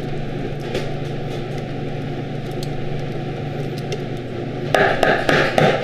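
A steady mechanical hum, with a spatula scraping thick sauce out of a stainless-steel saucepan into a metal tray; the scraping gets louder near the end.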